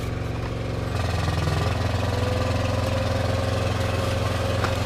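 A vehicle engine idling steadily, a low hum that gets slightly louder about a second in.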